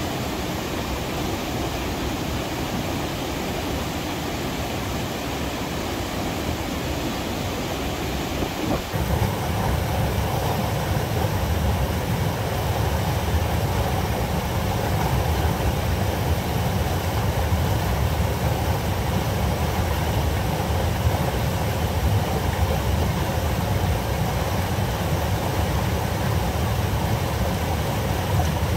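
River rapids rushing: a steady wash of fast water that changes abruptly about nine seconds in to a louder, deeper rush.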